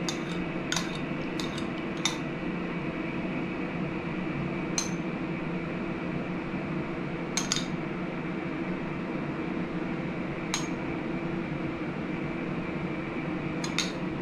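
Occasional light clinks of tableware, a spoon or glass touching dishes as salad dressing is poured over a salad, about seven scattered knocks over a steady background hum.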